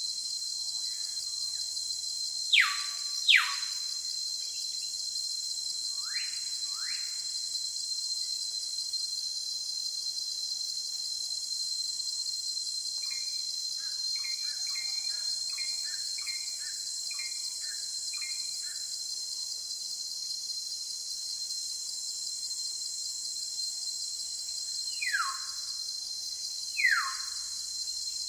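Steady high-pitched drone of jungle insects, with a bird calling over it: a pair of loud falling whistles about two and a half seconds in, another pair about six seconds in, a run of about eight short repeated notes around the middle, and a last pair of falling whistles near the end.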